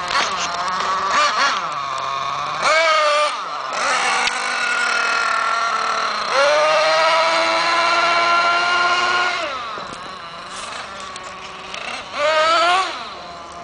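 Thunder Tiger MTA4 S50 Sledge Hammer RC monster truck's 8.2 cc two-stroke nitro engine revving: a few short blips, then a long high-rpm run that sags in pitch and level, and another rev near the end.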